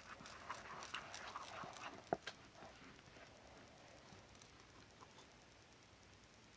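Slime being stirred in a bowl: faint sticky squelches and small clicks for about two seconds, with one sharper click just after two seconds, then near silence.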